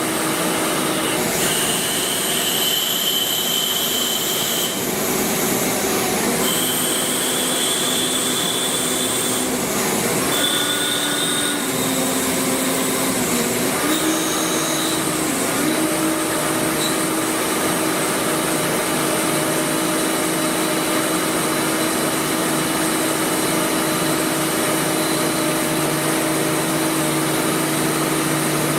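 Large CNC lathe running: a steady machining noise with whining tones that start, stop and shift in pitch every few seconds, settling into one steady whine about halfway through.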